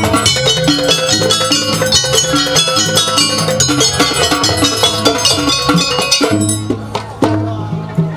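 Live jaranan gamelan ensemble playing: metallophones struck in fast, ringing runs over lower sustained notes. Near the end the high notes drop away for a moment, leaving lower held tones.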